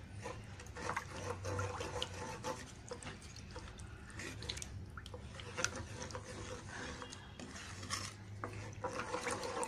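Wooden spoon stirring milky payasam in a nonstick pan: the liquid sloshes, with soft scraping and small knocks of the spoon against the pan.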